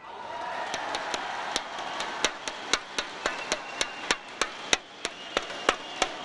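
Badminton arena crowd cheering after a point, with loud sharp rhythmic clapping of about three claps a second running over the cheer.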